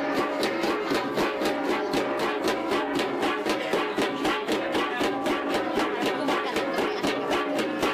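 Kalinga flat bronze gongs (gangsa) played together in a fast, even beat of about five or six strokes a second, their ringing tones overlapping.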